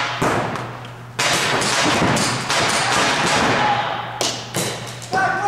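Pump paintball markers firing in a large indoor hall: sharp shots and paintballs smacking off inflatable bunkers, echoing. One hit right at the start, then a dense run of shots and hits from about a second in.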